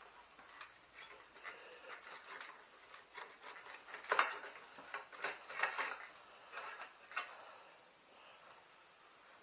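Irregular metallic clinks, rattles and light knocks as a bicycle's handlebars are taken off with hand tools. The loudest clatter comes about four to six seconds in, and it dies away near the end.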